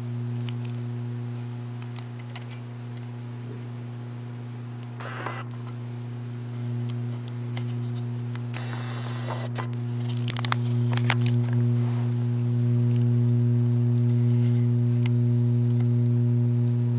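Steady low mains hum from a 175-watt mercury vapor fixture's ballast with the bulb burning at full power, growing louder about ten seconds in. Brief clicks and rustles of the camera being handled about five seconds in and again around nine to eleven seconds.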